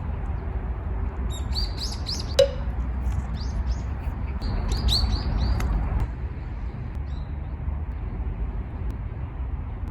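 Small birds chirping in two short bouts of quick high notes, over a steady low rumble of traffic. A single sharp click about two and a half seconds in.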